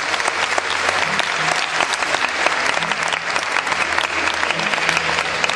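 Audience applause: many hands clapping steadily, with no break.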